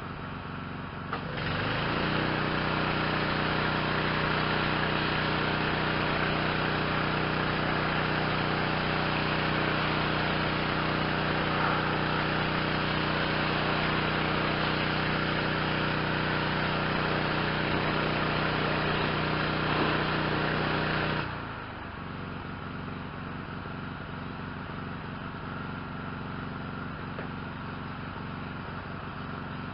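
Yamaha PW4040 pressure washer's 357 cc engine idling, then about a second in speeding up to full speed with a loud hiss of water spray as the gun's trigger is pulled. It runs steadily for about twenty seconds, then drops back to idle when the trigger is released: the machine's automatic idle-up and idle-down.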